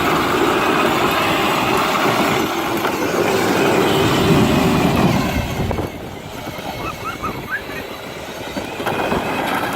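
Power Wheels Jeep on an 18-volt battery driving: its electric drive motors and gearboxes whir while the bare plastic wheels, with no traction belts, spin and slip on slippery ground as it tries to do donuts. It gets quieter about six seconds in.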